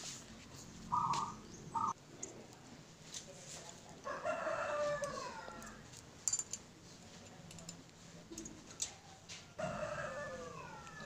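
A rooster crowing twice, once about four seconds in and again near the end, each crow falling in pitch at its close. Between the crows come a few small clinks of loose engine parts being handled.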